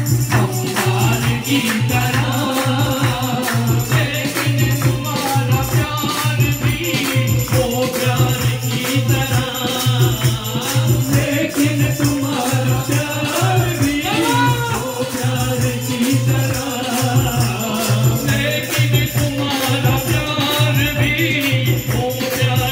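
Live Hindu devotional kirtan: male voices singing a bhajan into microphones, with the group singing along and hand-clapping and percussion keeping a steady beat.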